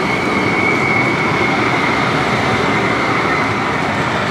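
Luxembourg city tram, a CAF Urbos low-floor light-rail vehicle, rolling past at close range and pulling away: a steady rumble of wheels on rail with a high whine that is strongest in the first couple of seconds.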